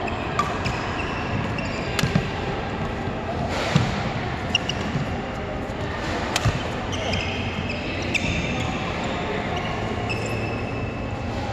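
Badminton rally: sharp cracks of rackets striking the shuttlecock a second or two apart, with short high squeaks of court shoes on the floor between them, over a steady background noise.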